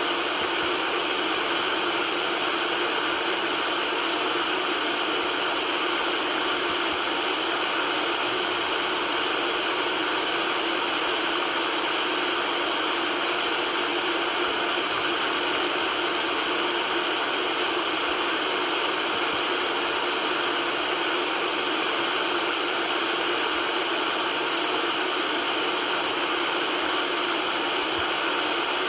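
Steady white noise: an even, unchanging hiss with little bass.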